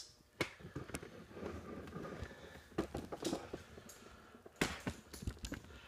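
Faint handling noise: a low rustle with scattered light knocks and clicks, a few sharper knocks about three seconds in and again near five seconds.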